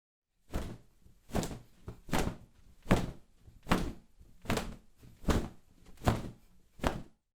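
A series of nine evenly spaced thuds, a little more than one a second, each dying away quickly. The last one comes near the end.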